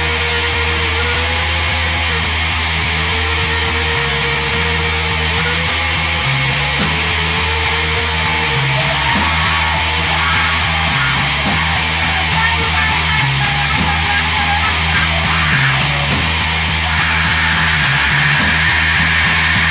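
Heavy, distorted noise-rock music: a low bass line stepping between notes under a dense wall of distorted guitar. Over the first several seconds a held note bends up and back down a few times.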